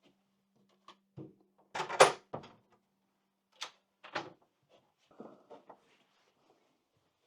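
A series of short knocks and clicks at uneven gaps, the loudest one about two seconds in.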